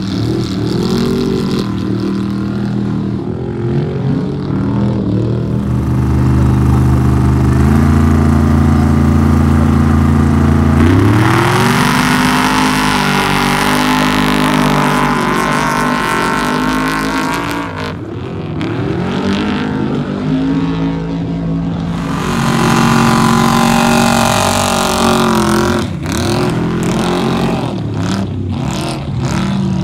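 Trophy truck race engines revving and accelerating hard off the line one after another. The engine note is held steady, then climbs sharply about eleven seconds in as a truck pulls away, and rises and falls again later.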